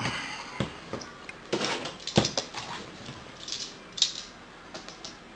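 Hands opening a cardboard product box: a run of knocks and clicks as the box and lid are handled, the sharpest a little past two seconds in, with short scuffs and rustles of packaging.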